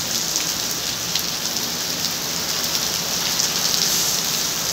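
Heavy rain falling steadily, a dense hiss with scattered close drops ticking on a nearby surface.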